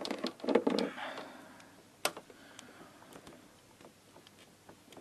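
Light clicks and short rattles of parts being handled in a scooter's engine bay, with one sharp click about two seconds in, then a few faint ticks; no engine running.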